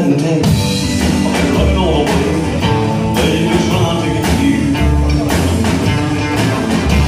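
Live blues-rock band playing: electric guitar over a pulsing bass line and drums.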